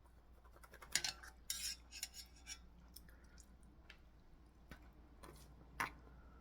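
Eating utensils clinking and tapping against a dish in a few scattered clicks, busiest from about one to two and a half seconds in, with one more clink near the end.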